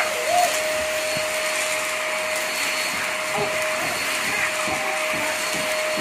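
MAXHEALTH vacuum cleaner running steadily, a constant motor whine over the rush of suction as its floor brush is pushed across ceramic tile. A few faint short chirps come and go over it.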